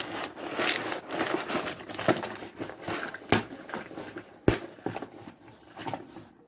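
Cardboard shipping box being opened and unpacked by hand: irregular rustling and scraping of cardboard and packing, with a couple of sharp knocks.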